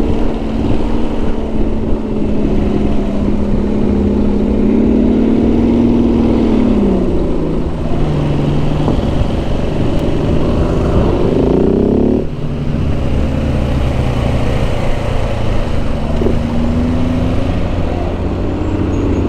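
A V12 car engine with a very loud exhaust runs close by in traffic. It holds a steady note, then revs up in a rising sweep over about two seconds, which cuts off abruptly near the middle, and then settles back to a lower note. Under it are the ridden motorcycle's own engine and wind noise.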